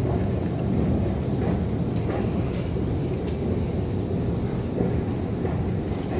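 Steady low rumble of a running subway-station escalator and the air moving through its shaft, with a few faint clicks in the middle.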